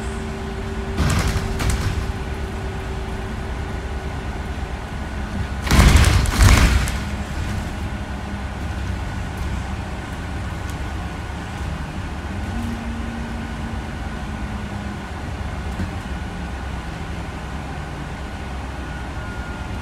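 A bus moving through city streets, heard from inside: steady engine and road rumble with a low engine hum, a short burst of noise about a second in, and a louder burst about six seconds in.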